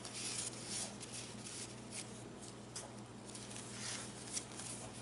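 Paper rustling and crinkling as the pages and a small paper envelope of a handmade junk journal are handled, in a run of soft, irregular brushing sounds over a faint steady hum.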